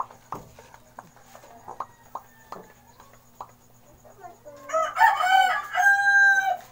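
A rooster crowing once, about five seconds in: a loud call of roughly two seconds that settles into a held steady note before breaking off. Before it, only scattered faint clicks.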